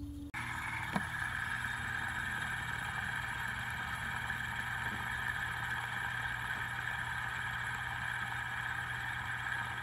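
Metal fidget spinner spinning flat on a surface, its bearing giving a steady whirring hum with several held tones.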